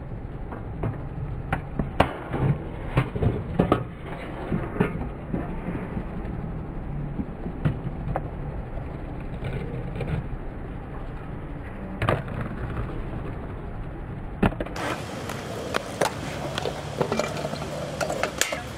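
Skateboard and scooter wheels rolling over the skate-park ramps, with repeated sharp clacks and knocks of decks and wheels landing and striking the ramp surface.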